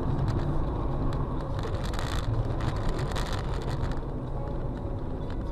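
A car driving along: steady engine and road-noise rumble, with a few faint clicks or rattles.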